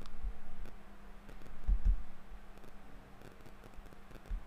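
A few soft computer mouse clicks as a text box is opened for editing, with dull low thumps, the loudest a little under two seconds in.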